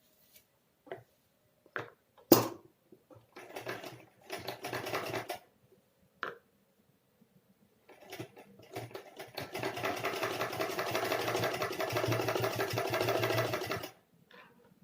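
Sewing machine stitching a seam: two short runs, then one steady run of about six seconds that stops abruptly. A few sharp clicks come before, the loudest about two seconds in.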